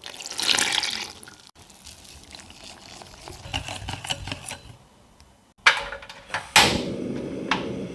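Water poured onto flour in a glass bowl, then a wire whisk stirring batter against the bowl. Near the end a gas hob burner lights with two sharp clicks about a second apart, followed by a steady flame hiss.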